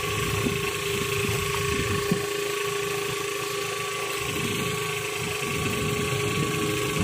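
Engine of a small outrigger fishing boat running steadily: an even hum with a constant whine, and a single brief knock about two seconds in.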